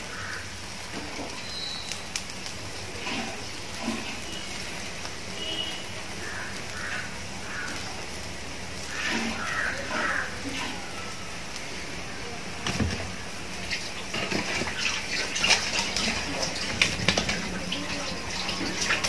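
Porottas frying on a hot iron tawa over a gas burner, a steady soft sizzling hiss, with a few faint clicks.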